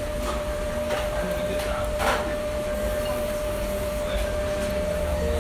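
Ramen shop room noise: a steady machine hum with a constant tone and low rumble, with a few faint light clicks and a brief louder noise about two seconds in.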